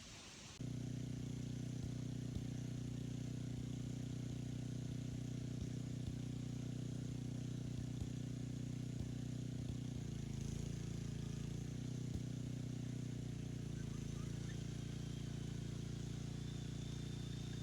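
Heavy-duty 13 amp corded right-angle drill starting up about half a second in and running steadily with a 1.5-inch bit and 3-inch collar bit boring a pin hole into a tree trunk, its pitch dipping twice as the bit bogs under load.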